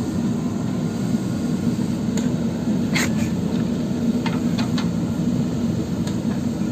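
JCB backhoe loader's diesel engine running steadily, with a few short sharp clicks and knocks over it.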